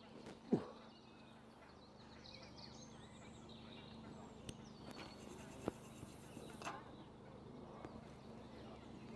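Quiet lakeside ambience with faint, scattered bird chirps, a short knock about half a second in, and a few light clicks later on.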